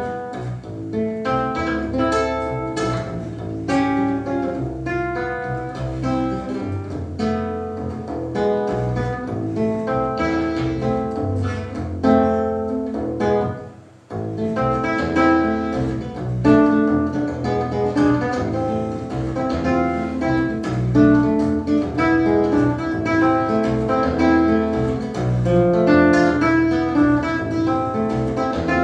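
Instrumental bolero played on plucked guitar strings: picked melody notes over a bass line. The playing thins out and nearly stops about halfway through, then picks up again.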